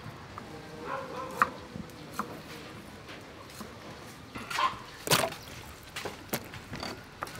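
A cleaver slicing lotus root stalks on a wooden chopping block, giving irregular knife knocks on the wood. About four and a half seconds in, a louder short sound stands out.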